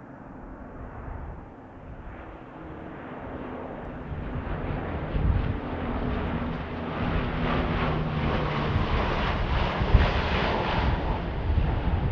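Four-engine turboprop C-130 Hercules air tanker and its smaller lead plane flying low past: a steady propeller drone that grows louder as they close in, loudest about ten seconds in as they pass.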